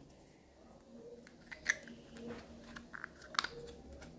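A few light plastic clicks and taps as fingers handle and press the black spring cassette of a tape measure into its housing.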